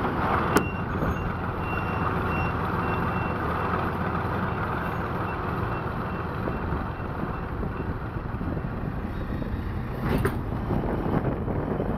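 Heavy vehicle engines running, with a reversing alarm beeping repeatedly over the first few seconds. A single sharp click comes about half a second in, and the sound changes at about 10 s.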